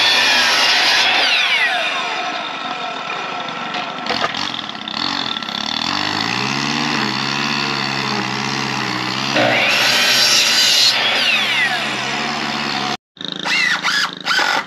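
Ryobi sliding compound miter saw running and cutting through a wooden board, with a louder bite into the wood at the start and again about ten seconds in, the motor whine falling off after each cut. It stops abruptly near the end.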